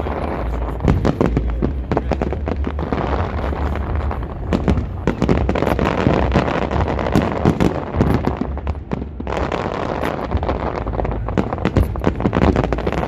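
Fireworks display: a dense, continuous run of bangs and crackling pops, briefly thinning out about two thirds of the way through.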